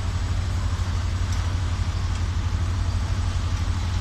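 Mobile crane's diesel engine running steadily during a lift, an even low rumble.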